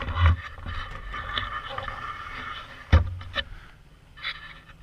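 Handling noise from a GoPro camera being repositioned: rubbing and scraping with two heavy knocks, one just after the start and a louder one about three seconds in.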